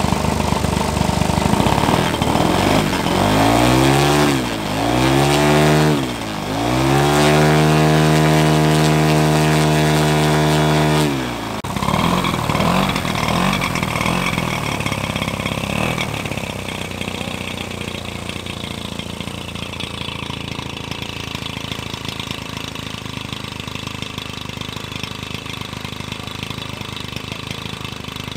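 Large two-stroke gasoline engine of a 50%-scale Sukhoi Su-26 RC plane running with its propeller turning: two quick throttle blips, then a run-up to high revs held for about four seconds before dropping back to idle. It then idles steadily and grows quieter as the plane moves away.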